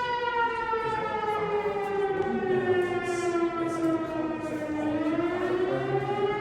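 Town fire siren wailing, a steady pitched tone that slowly falls over about five seconds and then rises again. It is sounding to call out the fire department.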